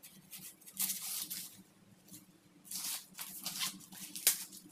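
Corn husks being torn and stripped off the cob by hand: papery rustling and ripping in several short bursts.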